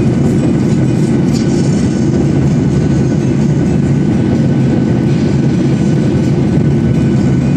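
Steady low rumble of a Boeing 737's jet engines and rushing air, heard inside the passenger cabin over the wing during the climb after takeoff.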